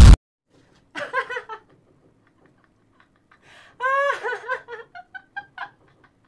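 A man laughing in two bouts, a short one about a second in and a longer, higher cackle from about four seconds in. A loud blast sound effect cuts off abruptly right at the start.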